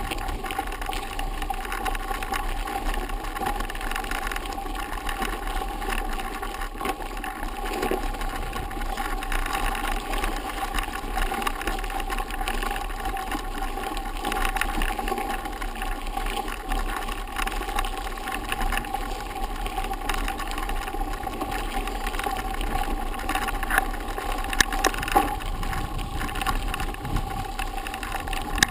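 Bicycle tyres rolling over a gravel forest road: steady crunching and rattling over loose stones, with a few sharper knocks from bumps near the end.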